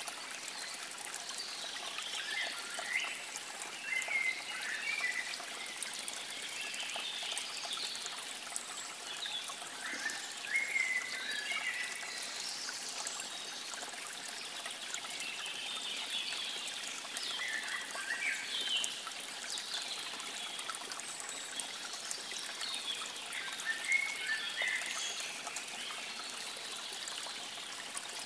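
Steady running water, with birds chirping in short twittering phrases every few seconds.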